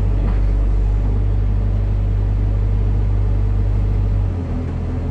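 Hitachi excavator's diesel engine running with a steady deep hum; about four seconds in, the engine note changes and its lowest tone drops away.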